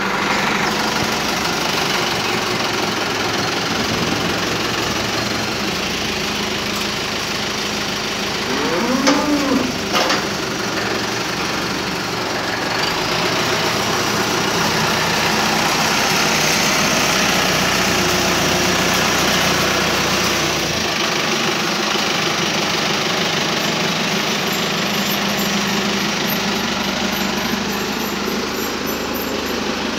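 Tractor engine running steadily as its front-loader bucket pushes manure. A cow moos once, about nine seconds in.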